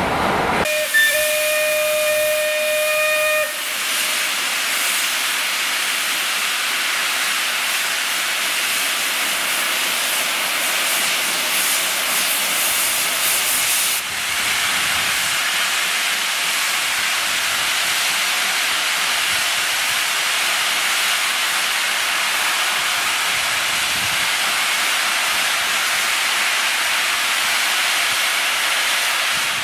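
A steam whistle sounds for about three seconds, then a steady, loud hiss of steam escaping from the cylinder drain cocks of a rebuilt Bulleid Pacific steam locomotive standing at the platform.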